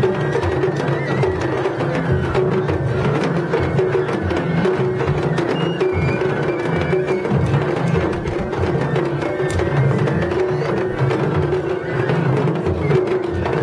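Japanese festival hayashi music from the floats: taiko drums beaten in a steady, continuous rhythm, with a high melody line stepping between notes above them.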